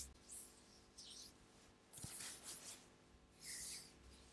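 Skin of hands and fingers rubbing and brushing together in short, soft swishes, about four of them, with a small click about two seconds in.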